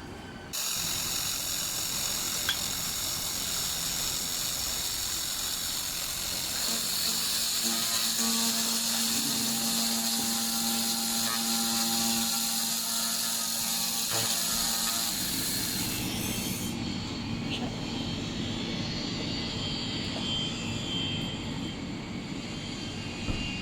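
Handheld fiber laser welding, cleaning and cutting machine working on metal: a loud steady high hiss starts suddenly about half a second in and cuts off around sixteen seconds, with a low hum joining midway. After it stops, a lower rushing noise carries on.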